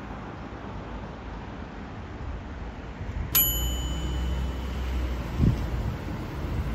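Street ambience with a low rumble, and a single bright bell-like ding about three seconds in that rings on briefly.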